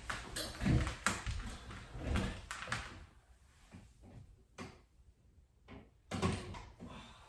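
Household handling noises: a run of knocks, clicks and rustles, going quieter in the middle with two sharp clicks, then busier again near the end.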